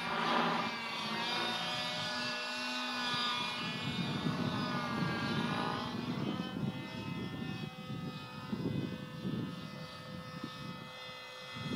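Glow-fuel engine of a radio-controlled model helicopter running, its pitch wavering up and down as the throttle changes.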